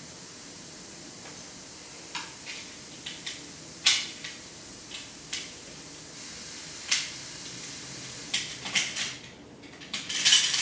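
Scattered sharp clicks and light clatter of small track parts (runners, carriers, stoppers) being handled and fitted into the track, with a quicker run of clatter near the end.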